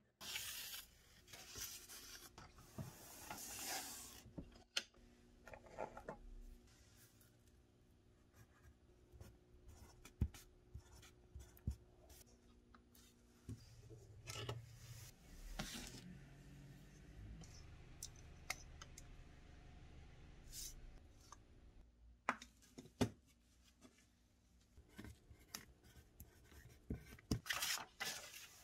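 Quiet handling noises on a wooden workbench: scattered light taps and clicks from tools and a knife handle blank being set down and picked up, with rubbing and rustling. Near the end comes a louder stretch of paper rustling as a paper template is flexed.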